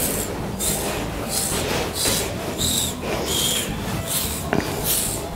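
Toothed metal sweat scraper raking through a pony's thick shedding winter coat in repeated rasping strokes, about one and a half a second, pulling out loose hair. One sharp click about four and a half seconds in.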